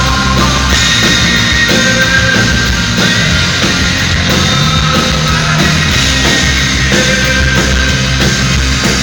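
Rock band playing a song live and loud, with drums and guitars, as a dense, continuous wall of sound.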